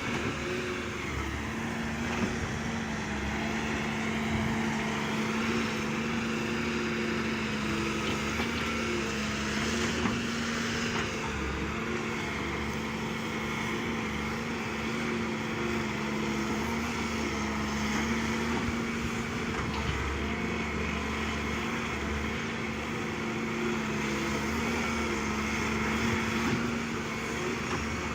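Diesel engine of heavy earthmoving equipment running steadily under work, a constant hum with a few faint knocks.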